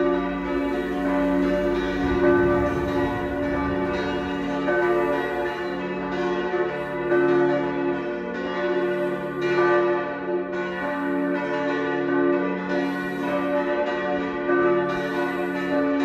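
Church bells of a village church tower ringing together in a full peal. The strokes overlap, with a fresh strike every second or two over a steady ringing hum.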